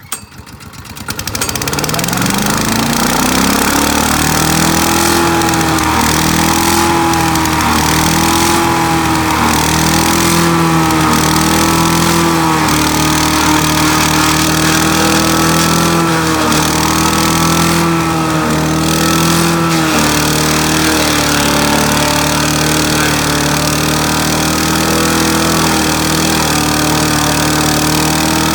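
Great Circle wood chipper's gas engine starting: it catches right away, climbs in pitch over about two seconds, then runs steadily at speed with a slight, recurring waver in pitch.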